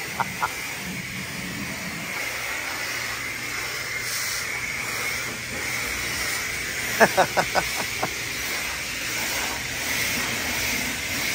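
Steady hiss of a self-service car wash's high-pressure spray wand. A quick run of rapid pulses, about five a second, comes at the very start and again about seven seconds in.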